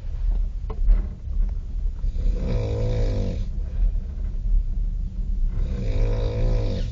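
A man snoring on a train: two long snores about three seconds apart, each a drawn-out throaty tone that wavers in pitch, over the steady low rumble of the train.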